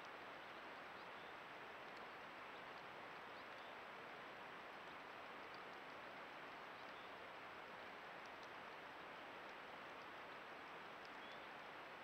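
Near silence: the faint steady hiss of a trail camera's microphone, with a thin high tone running steadily underneath.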